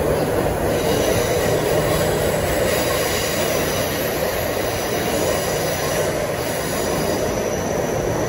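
Taipei Metro C301 train running at speed, heard from inside the carriage: a steady rumble of wheels on rail, with a faint high whine over it.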